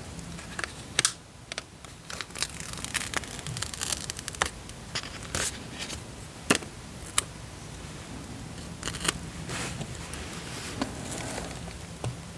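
Paper stickers being peeled off their backing sheet and pressed onto paper planner pages: rustling and peeling with scattered sharp clicks and taps.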